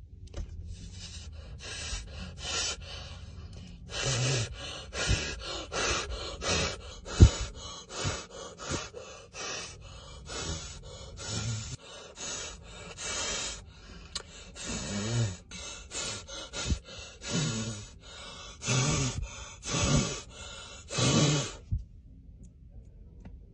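A man blowing out hard in quick, repeated breaths, about one or two puffs a second, with short pauses, as he tries to make a toothpick balanced under his nose spin. There is one sharp knock about seven seconds in, and the breaths stop near the end.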